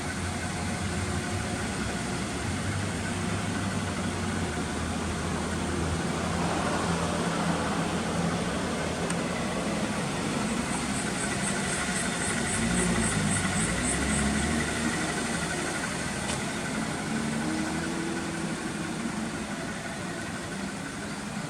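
Honda Integra Type S (DC5) 2.0-litre inline-four running steadily at idle through an aftermarket exhaust, with slight swells in level. Partway through, a quick run of faint, high-pitched ticks sounds for a few seconds.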